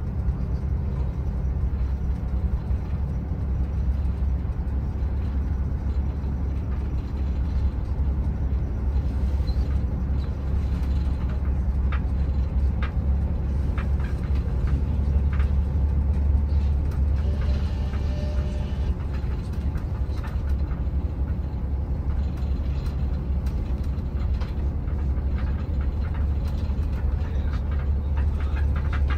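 Shuttle bus running, heard from inside the cabin: a steady low engine and road rumble with scattered clicks and rattles.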